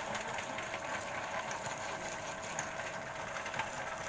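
Electric-motor-driven chicken-head crusher running steadily, a constant hum with light irregular ticks and knocks from the mechanism.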